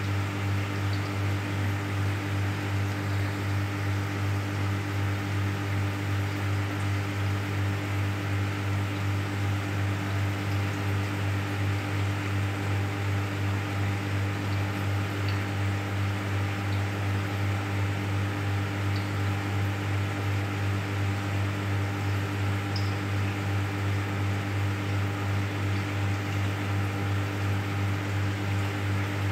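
Steady electric hum of an aquarium pump with a constant hiss, pulsing slightly and evenly in loudness.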